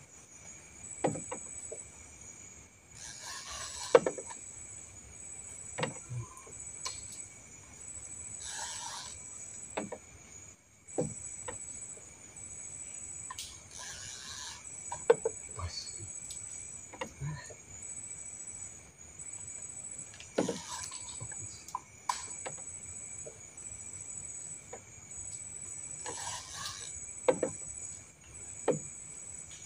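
Clicks and knocks of a spinning reel and rod being worked while playing a hooked fish, with short rushes of noise about every five or six seconds, over a steady high-pitched chirring of night insects.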